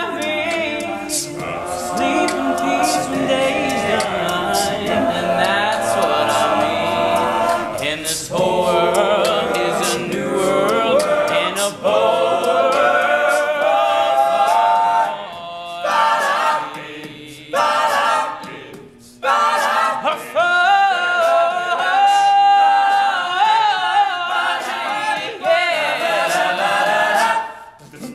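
All-male a cappella group singing: a lead voice over close-harmony backing voices, with a few short pauses in the second half.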